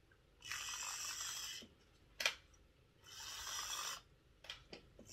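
A person breathing heavily close to the microphone: two long, hissy breaths, with a single sharp click between them and a few faint ticks near the end.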